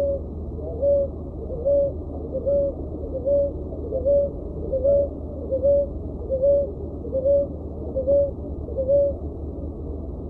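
Recorded ruddy ground dove call, played as a lure to attract ruddy ground doves. It is a steady series of short two-part coos, a little over one a second, sounding muffled over a constant low hum.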